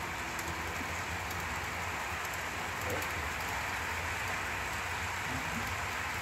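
Model freight train cars rolling past on the layout's track: a steady rushing rattle of wheels on rails.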